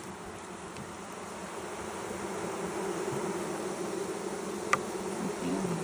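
Swarm of honey bees buzzing around an open hive as a nuc is transferred into a deep box, a steady hum that grows louder, with a sharp click near the end.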